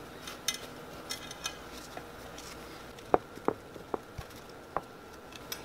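Light clicks and short taps against a ceramic baking dish as slices of bread are laid into it by hand, a few faint ticks early on and about five sharper taps in the second half.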